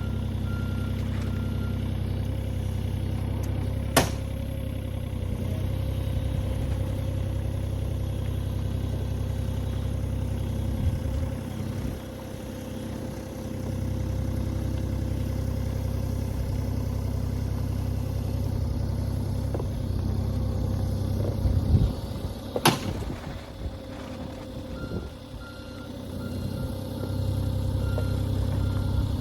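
Excavator's diesel engine running steadily, with a repeating travel-alarm beep near the start and again near the end. Two sharp clanks, about 4 seconds and 23 seconds in.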